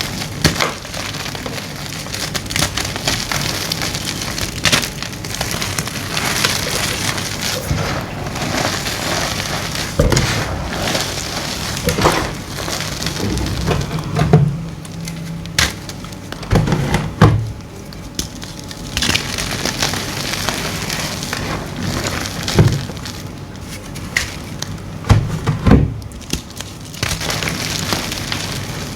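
Blocks of gym chalk being crushed and crumbled: continuous dry crunching and crackling, with sharper snaps every few seconds as pieces break apart.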